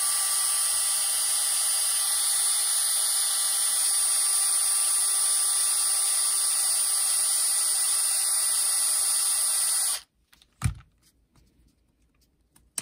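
Dremel cordless electric screwdriver running steadily with a high whine as it backs out the screw that releases the track tensioner on an RC crawler's track unit. About ten seconds in it stops abruptly, followed by a single short knock.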